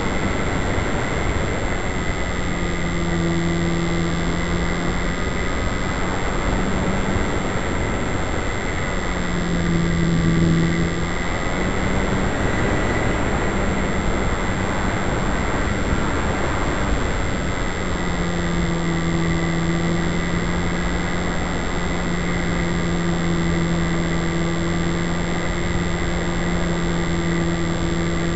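A 9mm foam Yak-55 RC plane in flight, heard through its onboard camera: a constant rush of wind over the microphone, with the motor and propeller's steady low hum that drops away and returns several times, about a third of the way in, then mid-way, then from about two-thirds on.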